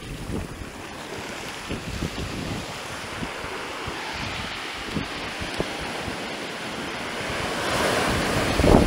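Surf washing up a black-sand beach around bare feet, its foamy hiss building as a wave breaks and rushes in near the end. Wind buffets the microphone throughout.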